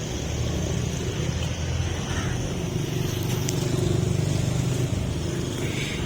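A motor vehicle's engine running steadily as a low rumble, with street traffic around it.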